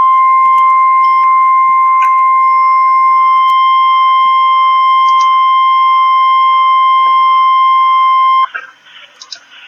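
Emergency alert attention tone of a National Weather Service warning broadcast: one loud, steady, single-pitch beep held for about eight and a half seconds, then cut off abruptly. The tone marks a warning, here a severe thunderstorm warning, about to be read.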